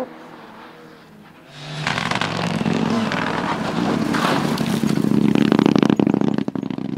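A rally car's engine, faint at first, comes in loud at about two seconds and runs hard at high revs as the car passes close. It builds to its loudest with a rapid crackling clatter between about five and six and a half seconds in.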